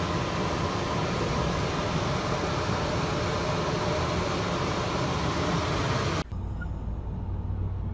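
A steady, even rushing hiss of moving air with a faint hum in it, which cuts off suddenly about six seconds in and gives way to a quieter low rumble.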